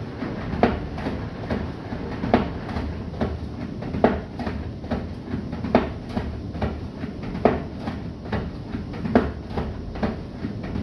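Bosch WGG154A10 front-loading washing machine tumbling a load: the drum turns slowly and the laundry drops with a thud about every one and three-quarter seconds, with lighter knocks in between, over a low rumble.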